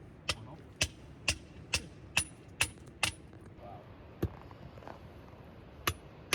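A hand tool striking hard: seven sharp blows at about two a second, then a few more spaced out near the end, each with a faint metallic ring.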